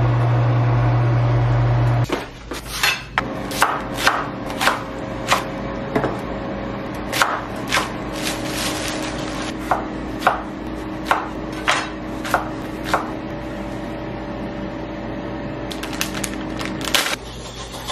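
A chef's knife chopping lettuce on a wooden cutting board: sharp knocks of the blade on the board, about one or two a second, with a pause a few seconds before the end and a few more knocks near the end. The first two seconds hold a loud steady low hum before the chopping starts.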